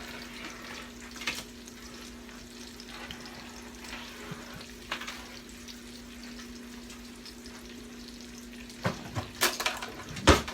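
Chicken in curry sizzling gently in a pan, over a steady low hum. A few light clicks come early, and several loud knocks and clatters of kitchenware come near the end.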